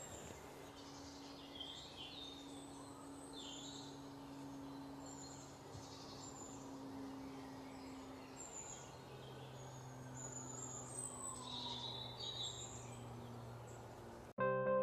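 Faint outdoor ambience of scattered bird chirps over a low steady hum. Music starts suddenly near the end.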